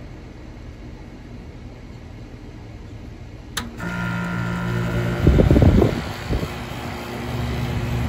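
York Stellar central air conditioner condensing unit starting up: a sharp click about three and a half seconds in, then its Bristol reciprocating compressor and condenser fan come on with a steady hum. A loud low rattle for about a second follows as the unit comes up to speed, then it settles into a steady run.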